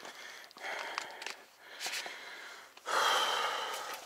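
A rider breathing hard from the effort of riding: two long, noisy breaths, the second, from about three seconds in, the louder, with a few sharp clicks between them.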